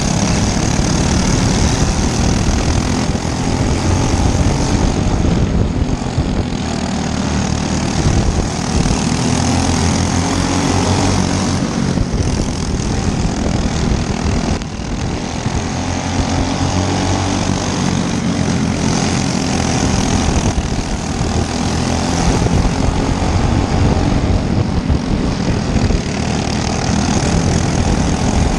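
Dirt-track racing kart engines running at high revs, a loud steady drone that eases off and comes back every few seconds.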